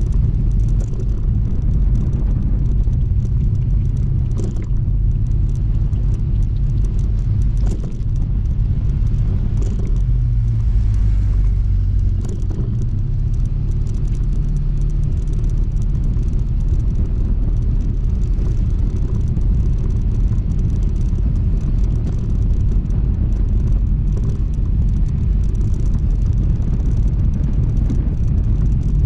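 Honda ADV160 scooter's single-cylinder engine running steadily on the move, under a heavy low rumble. The engine note drops about ten seconds in and picks up again a couple of seconds later, with a few brief knocks along the way.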